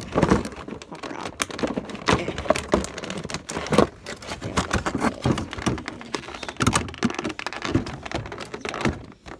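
Plastic toy packaging being handled and tugged at: irregular crinkling, rustling and clicks as a figure is worked against its fastenings.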